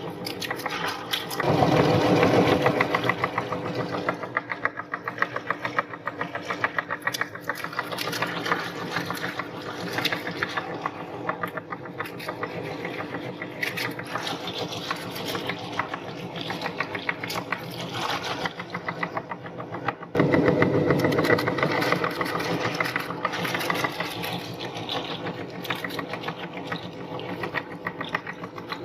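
Meat grinder running and grinding something through, a continuous fast rattle over a steady motor hum. It grows louder twice, about a second and a half in and again about twenty seconds in.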